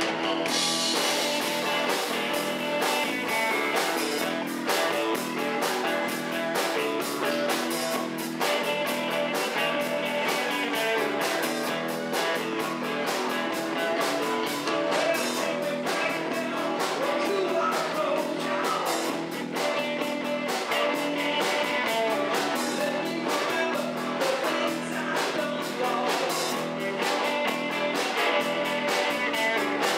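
Live rock band playing: electric guitar, electric bass and drum kit keeping a steady beat, with a man singing into the microphone.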